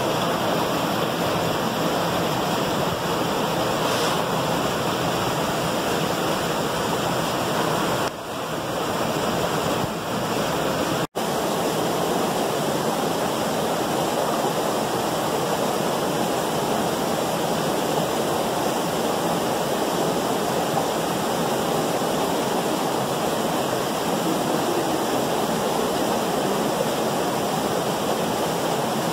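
Small waterfall and creek rushing steadily, with a momentary dropout in the sound about eleven seconds in.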